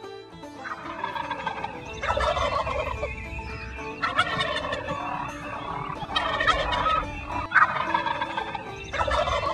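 Wild turkey gobbling: about six rattling gobbles in a row, one every second or two.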